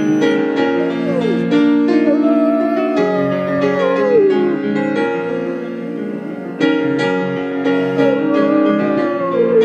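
Great Pyrenees howling along to piano playing. A short falling howl about a second in is followed by a long wavering howl that slides down in pitch, and another long howl near the end. This is the dog's 'singing' to the piano, not a cry of pain.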